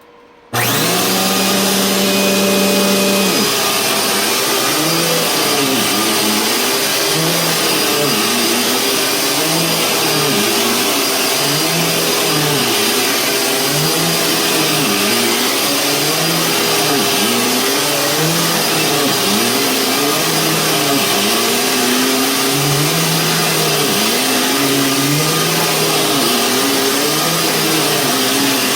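Dirt Devil Breeze bagged upright vacuum cleaner with a 12-amp motor switched on about half a second in, then running loud and steady, a low hum in it wavering in pitch every second or two. It runs really well.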